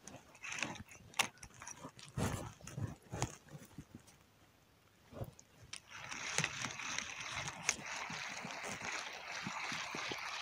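Handling noise from a spinning reel and rod: scattered clicks and knocks at first, then, about six seconds in, the reel is wound steadily with a dense run of small clicks.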